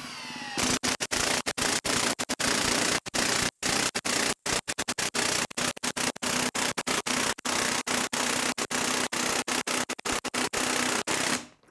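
Milwaukee M18 one-inch cordless impact wrench winding up and then hammering nonstop as it drives a long lag screw into a wood stump, the sound cutting out briefly many times before it stops near the end.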